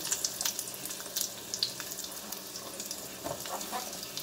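Sliced onions sizzling in hot oil in a steel kadai, a steady hiss with scattered crackles.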